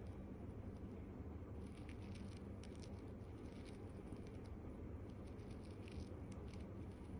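Faint, irregular crackling and scratching of a fluffy-tipped wire ear pick turning inside the ear canal, close up, over a steady low hum.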